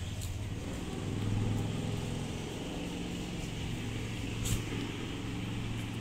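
A motor vehicle's engine running nearby, a steady low hum that swells about a second in. A single sharp tick about four and a half seconds in.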